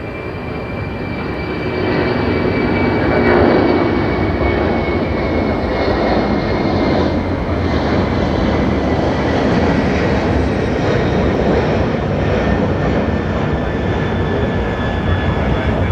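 Boeing 747's four jet engines at takeoff thrust as the jet climbs out close overhead: a loud roar that builds over the first couple of seconds and then holds, with a high whine slowly falling in pitch as it passes.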